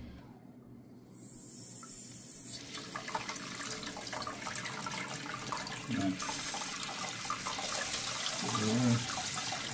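Water hissing through a toilet's supply line and fill valve into the tank as the angle stop valve under the tank is slowly opened. The hiss starts about a second in and grows louder.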